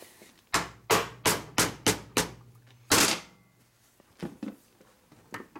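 Mallet blows tapping the polished aluminium gear cover down onto a 1978 Harley-Davidson shovelhead crankcase: six quick taps about three a second, then a heavier seventh blow, and a few light knocks near the end. The cover still goes on tight, a sign of something binding inside.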